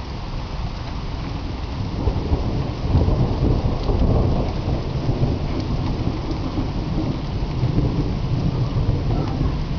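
Steady rain with rolling thunder that swells about two seconds in and keeps rumbling.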